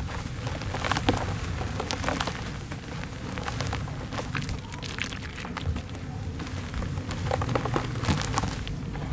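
Hands crumbling a dry, dusty block of dirt into foamy water in a plastic tub: a dense patter of falling crumbs and splashing, with many small crackles, over a low rumble.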